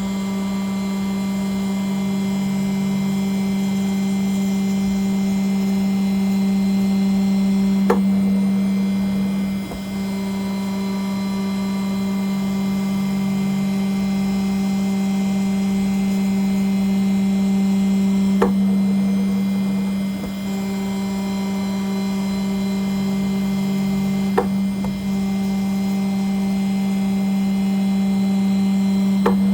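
CNC engraving spindle running at steady speed while cutting an aluminium nameplate, a constant hum with a high overtone. A sharp click sounds four times, several seconds apart.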